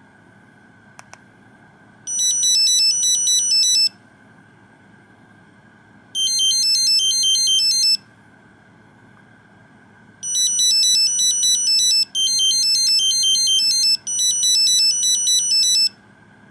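Nokia 2100 mobile phone playing one of its original built-in monophonic ringtones: a fast tune of quick beeping notes, heard as two short phrases with pauses between them, then three phrases back to back. Two brief clicks come about a second in, before the tune starts.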